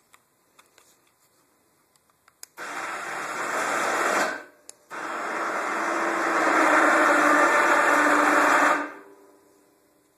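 Small electric winch motor on a lawn tractor running in two bursts, a short one then a longer one after a brief stop, growing louder as it hauls the front plow blade up on its cable; it cuts off sharply near the end.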